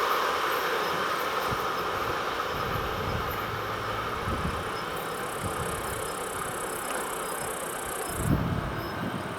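Passing train's wheels running on the rails, a steady rushing noise that fades gradually as the train moves off.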